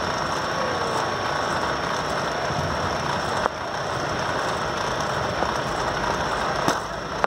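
Steady rumbling background noise, with two sharp knocks about three seconds apart.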